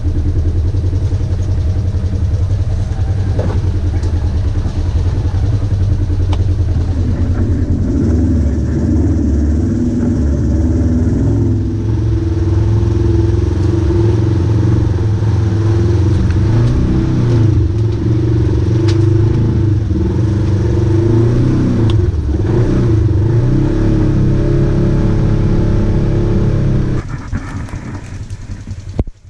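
Polaris RZR side-by-side's engine running and revving over rough ground, its pitch rising and falling with the throttle. About 27 seconds in it gives way abruptly to a quieter, more distant engine sound.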